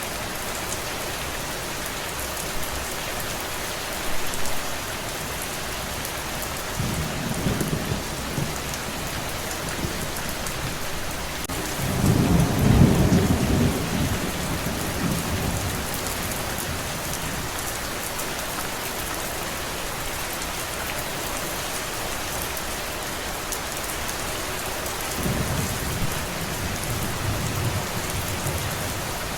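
Steady heavy rain, with thunder rumbling three times: briefly about seven seconds in, loudest around twelve to fourteen seconds, and again near the end.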